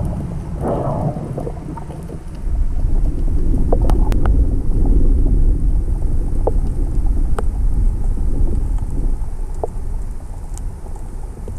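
Underwater noise picked up by a GoPro camera in its housing while snorkeling over a coral reef: a low, muffled rumble of moving water that grows louder about two and a half seconds in, with scattered sharp clicks and a short hissing rush near the start.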